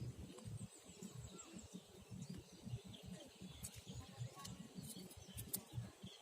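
Quiet riverbank ambience: an uneven low rumble, with faint bird chirps and a few sharp clicks around the middle and near the end.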